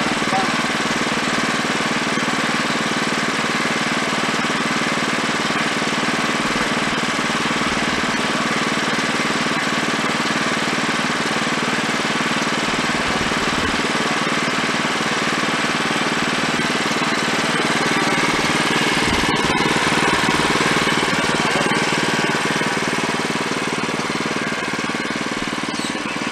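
Wood-Mizer LX25 portable bandsaw mill running steadily, its engine under load as the band blade saws through a log. The sound swells a little louder about two-thirds of the way through.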